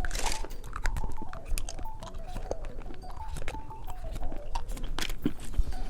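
Close-miked chewing and biting of candy, a run of small sharp clicks and crunches.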